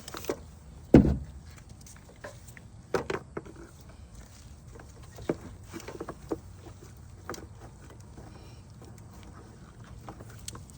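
Scattered knocks and clunks of a fluid hose and its fitting being pulled up and handled in a car's engine bay, the loudest a sharp knock about a second in.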